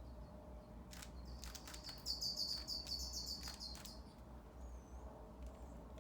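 Rubik's cube clicking as its layers are turned, several sharp clicks. Over the middle a bird twitters in a rapid, high run of chirps lasting about two and a half seconds, the loudest sound here.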